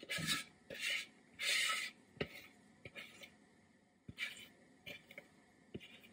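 Spatula scraping thick cornbread batter out of a mixing bowl: three quick scrapes in the first two seconds, the third the longest and loudest, then fainter scrapes and a few light taps.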